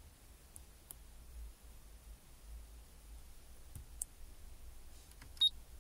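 Sparse, faint clicks as keys are tapped on the touchscreen keyboard of an Android car head unit, with a sharper click and a brief high beep near the end, over a low steady hum.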